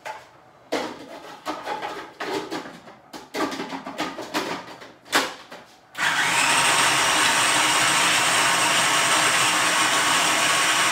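Scattered knocks and clatter as toasted almonds go in through a food processor's feed tube. About six seconds in, the food processor switches on and runs steadily, whizzing the almonds into a tomato-and-basil pesto.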